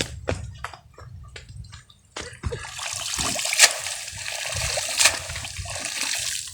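Water splashing and sloshing. A few light knocks come first, then from about two seconds in a steady rush of water with two sharp smacks.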